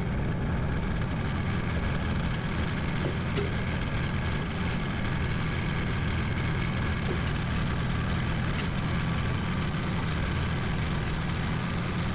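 Kubota tractor's diesel engine running steadily as the tractor is driven.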